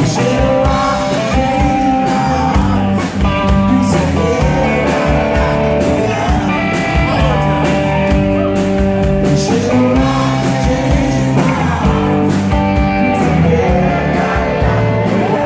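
Live band music: a man singing lead over electric guitars and a drum kit keeping a steady beat.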